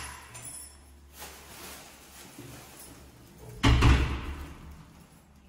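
Apartment front door being unlatched and pulled open about three and a half seconds in: a loud clack of the latch with a thud.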